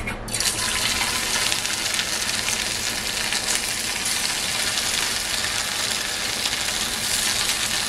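Marinated boneless chicken pieces for chicken 65 going into hot oil and deep-frying with a loud, steady sizzle. The sizzle starts suddenly as the first piece hits the oil, and more pieces are added by hand.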